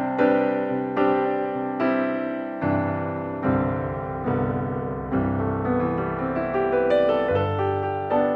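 Background music: a gentle piano piece, with chords struck about once a second and left to ring.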